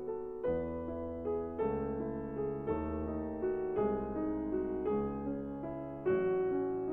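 Background music: a gentle piano piece with soft chords struck about once a second.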